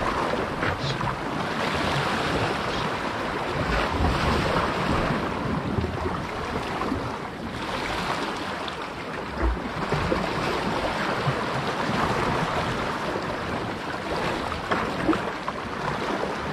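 Sea waves washing on the shore, swelling and easing several times, with wind buffeting the microphone.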